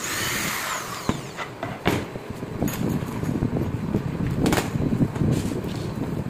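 Electric hand drill whirring briefly at the start, then laminated wooden boards being handled and set down on a worktable, with several sharp knocks about one, two and four and a half seconds in, over a steady low rumble.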